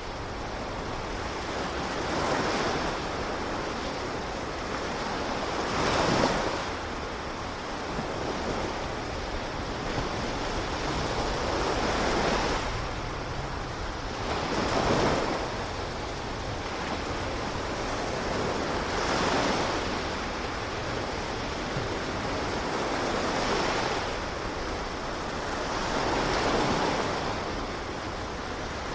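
Ocean waves washing on a shore: a steady surf hiss with a surge every few seconds as each wave breaks and draws back.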